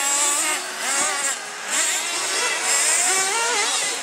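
Several radio-controlled off-road racing buggies and truggies running on the track, their small engines revving up and down. The high, overlapping whines rise and fall with each burst of throttle.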